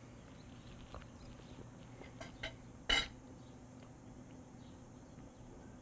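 Quiet eating sounds: a few soft clicks of a fork and knife over a plate, with one sharper click about three seconds in, over a faint steady background hum.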